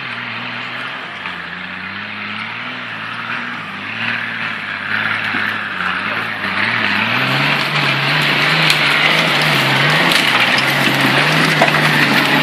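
Nissan Patrol's engine pulling under load off-road on chained tyres, its note wavering and then rising about seven seconds in. A rough noise from the tyres and chains grows louder along with it.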